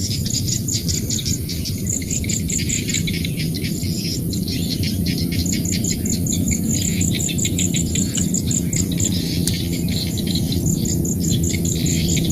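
Rice-field chorus: insects chirping in fast, even pulse trains, high-pitched, over a dense low chorus of frogs, with bird calls mixed in.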